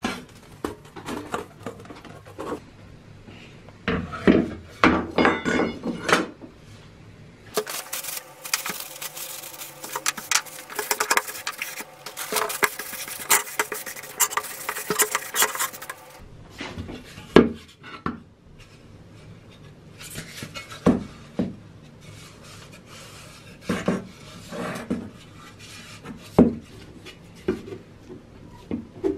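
Rusted steel firefighter helmet being scrubbed and wiped, with metallic clinks. In the second half come separate knocks and clanks of the metal shell against a wooden table as it is handled and pressed on.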